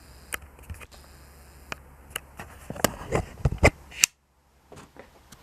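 A run of sharp clicks and knocks from handling, with a cluster of heavier bumps around the middle and a brief dropout of all sound near the end, over a steady low hum.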